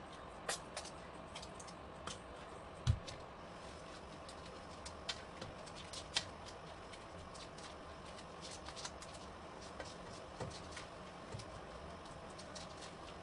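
Plastic slotted spatula scraping and clicking against a non-stick frying pan while stirring scrambled egg and tomato, in irregular strokes, with one louder knock about three seconds in, over a steady low hiss.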